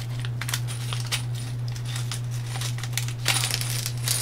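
Small metal screws, bolts and nuts clinking together in quick irregular clicks as they are handled and sorted on a workbench, over a steady low hum.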